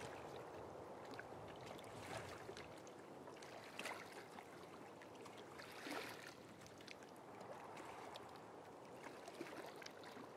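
Faint waterside ambience: river water lapping, with a few soft splashes about two, four and six seconds in.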